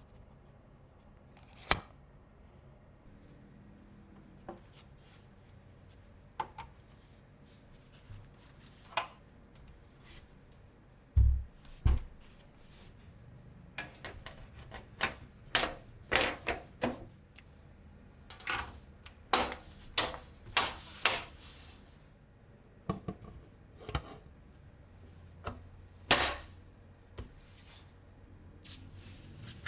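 Hands handling and fitting PC parts: scattered small clicks, taps and brief rubbing of plastic and metal, busiest toward the middle, with two dull thumps about eleven seconds in.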